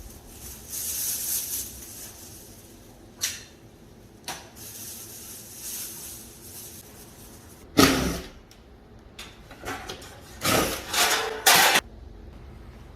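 Parts of a ceiling-cassette air conditioner being handled during disassembly: intermittent rustles and knocks, a sharp clatter about eight seconds in, and a run of louder scrapes and clunks near the end.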